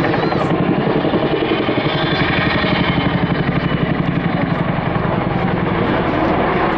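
Helicopter flying past low and loud, its rotor blades beating in a fast, even rhythm over the whine of the turbine engines.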